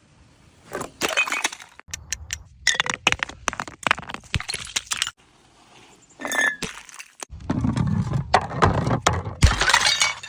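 Glass bottles smashing, a series of separate bursts of cracking and shards clinking and crunching, the last and longest one heavier and denser.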